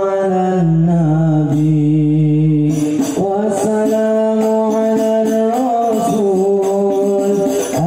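Shalawat sung over a loud sound system: a voice holding long, drawn-out notes, bending in pitch between them, with frame-drum and tambourine strikes behind it.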